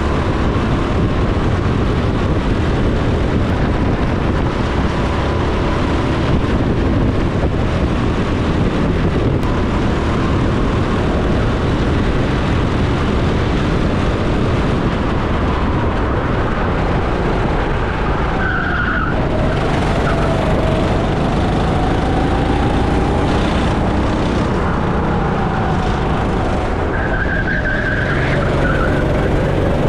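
Go-kart engine running at speed on a track, heard onboard, its pitch rising and falling with throttle through the corners; brief tyre squeals about two-thirds of the way in and near the end.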